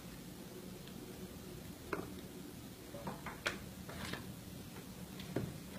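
A few faint, short clicks and taps, scattered irregularly over a low steady hum.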